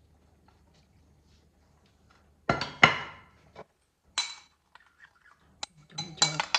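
Dishes clinking. A dish is set down with a loud, ringing clink about two and a half seconds in, then a few lighter clinks of utensils against dishware follow near the end.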